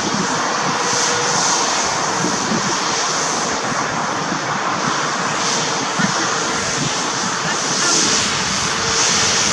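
Battery-powered RC hovercraft's electric propeller fans running steadily: a broad airy whirr with a faint motor tone that wavers in pitch.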